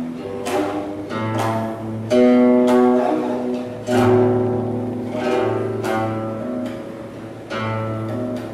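Guqin, the seven-string Chinese zither, played solo: a slow phrase of plucked notes, each struck about a second apart and left to ring on.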